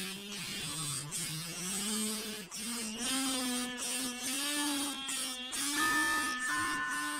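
Paper and comb played like a kazoo: a buzzing hum whose pitch slides up and down as a wavering tune. Near the end a few steady musical notes come in.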